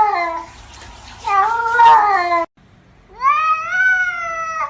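Cat meowing in long, drawn-out calls: one trails off about half a second in, a second cuts off suddenly in the middle, and a third rises and holds to the end.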